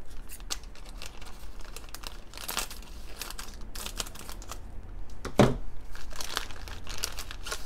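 Thin clear plastic Happy Meal toy bag crinkling as it is handled and torn open, with a sharp crack about five seconds in, the loudest moment.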